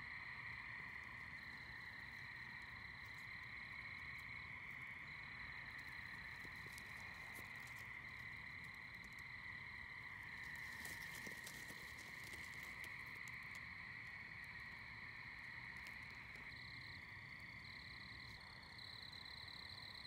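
Faint, steady nighttime chorus of calling animals: an unbroken high-pitched trilling hum, with a few soft clicks about halfway through.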